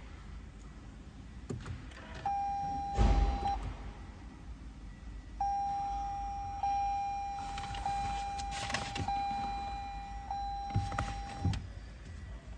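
Toyota Camry 2GR-FE 3.5 L V6 being cranked on the starter in two tries, a short one of about a second and then a longer one of about six seconds, heard as a steady whine, with a few knocks. It is the first start after the fuel injectors were removed, with the fuel lines still empty of fuel.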